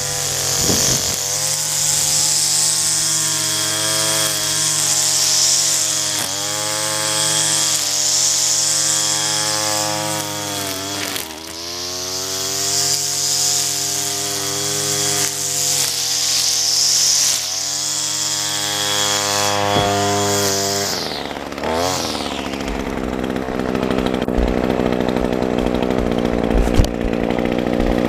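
Gas-powered string trimmer running at high revs while cutting grass, its engine note dipping briefly several times. About three-quarters of the way through, the revs fall away sharply and a low rumble follows.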